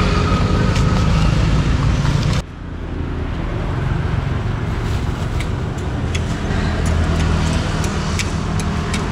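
Steady low engine hum of motor traffic, with the sound dropping abruptly about two and a half seconds in and then carrying on. A few light clicks come in the second half.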